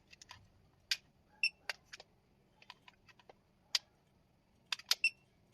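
Sharp plastic clicks of small remote-control buttons being pressed, irregular, about a dozen, with two short high beeps among them, about a second and a half in and near the end.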